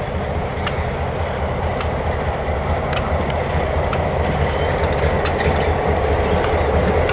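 Diesel switcher locomotive running with a steady low rumble as it rolls slowly past, growing gradually louder as it nears. Sharp clicks from the wheels on the track come every second or so at uneven intervals.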